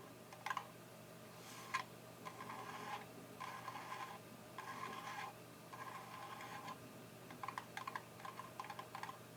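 Soft scratching and light tapping on the fins of a PC cooling part: a few short rubbing strokes, then a quick run of small clicks near the end.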